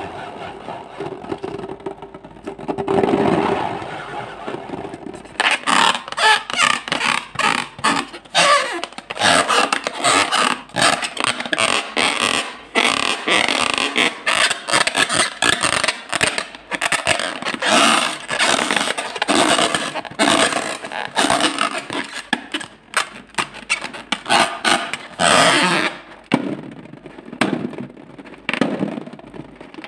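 A rubber balloon being squeezed and rubbed in the hands: rapid, irregular rubbery squeaks and scrapes, thinning out near the end.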